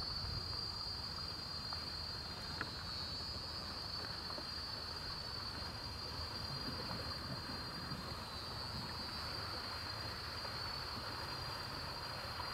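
A steady high-pitched insect chorus over a soft, even rush of flowing water.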